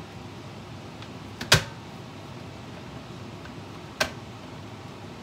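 Two sharp clicks from the lid of a Mr D thermal cooker as it is pressed down and sealed. The first, about a second and a half in, is the louder, with a dull knock under it; the second comes about four seconds in.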